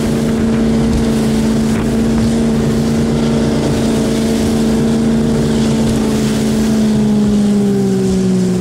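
Sutphen powerboat's engine running at a steady cruising pitch, its note sliding slightly lower near the end as the throttle eases. Wind buffets the microphone.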